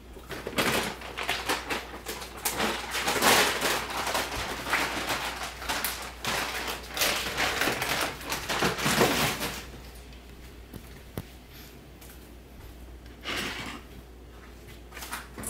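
Clattering and rustling handling noises, a dense run of rapid clicks and knocks lasting about nine seconds, then a quieter stretch and a shorter burst near the end.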